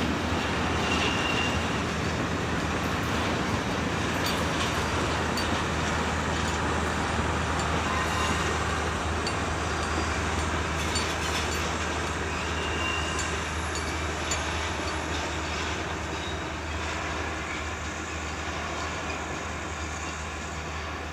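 Freight train of covered and container wagons rolling past on the rails: a steady rumble of wheels with two short, high wheel squeals. The sound slowly fades near the end as the train draws away.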